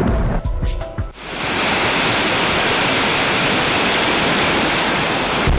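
A music sting fades out in the first second. Then comes a steady rushing noise like fast-flowing water, which cuts off suddenly near the end.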